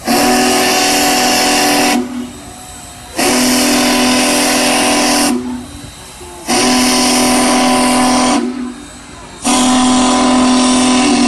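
Union Pacific Big Boy No. 4014's steam whistle sounding a chord of several steady tones in four long blasts, each about two seconds with a pause of about a second between. Crowd voices murmur in the gaps.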